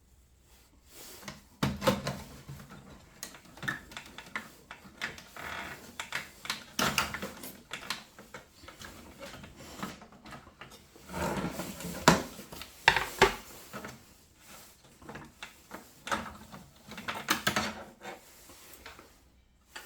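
Irregular clicks, knocks and rubbing as boiler parts and casing are handled by hand, with the sharpest knocks about two seconds in and again about twelve seconds in.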